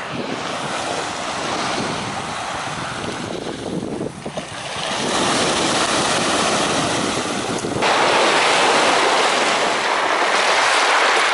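Sea waves breaking and washing over a stony shingle beach, with wind buffeting the microphone. The noise swells about halfway through and jumps louder about eight seconds in.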